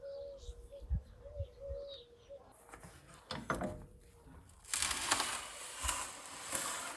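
A dove cooing a short repeated phrase in the first two seconds or so. Then a steel baking tray is dragged out across the stone floor of a wood-fired oven with a metal hook, a rough scraping that is loudest in the last two seconds.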